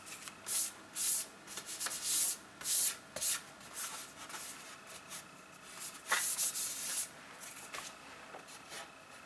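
Quick rubbing strokes on the aluminium bottom cover of a MacBook Air as it is cleaned. Several short strokes come close together in the first three seconds, one more comes a little after six seconds, and then the sound fades.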